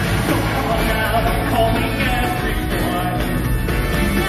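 Loud, continuous show soundtrack music with a rock feel.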